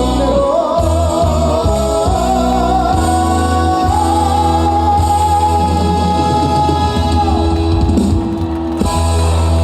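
A male singer holds a long note with vibrato over a live trot band with heavy bass. The voice falls away about seven and a half seconds in while the band plays on.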